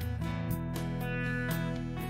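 Instrumental music led by strummed guitar chords, about one strum a second, with no singing.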